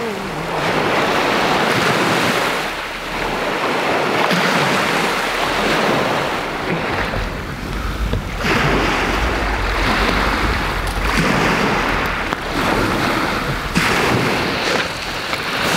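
Lake Superior waves washing onto a cobble beach, surging in and out every two to three seconds, with wind rumbling on the microphone. One sharp crack near the end.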